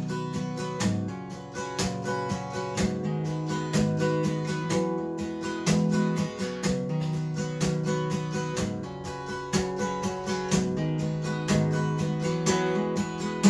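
Acoustic guitar strumming chords in a steady rhythm: an instrumental break in the song with no singing.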